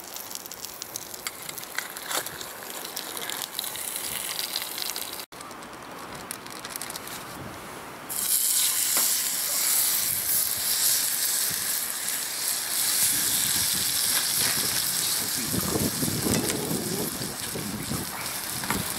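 Hamburger patties sizzling in a frying pan over a wood-ember campfire. The sizzle becomes loud and steady about eight seconds in; before that there is a softer crackly hiss of the fire and pan.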